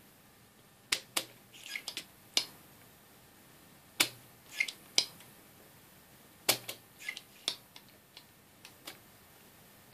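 A spring-loaded solder sucker (desoldering pump) snapping as it is fired and re-cocked, a sharp click every half second to a second, sucking molten solder out of the through-hole joints where the old input selector IC was removed.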